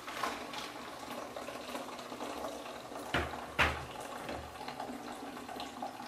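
Blended spinach-and-pineapple drink pouring from a blender jar and draining through a plastic strainer into a bucket, a steady liquid splash. About three seconds in come two sharp knocks as the glass jar is set back on the blender base.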